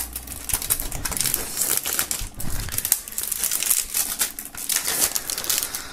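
Clear plastic shrink-wrap being torn and peeled off a cardboard CD digipak by hand, crinkling and crackling in a dense, irregular stream.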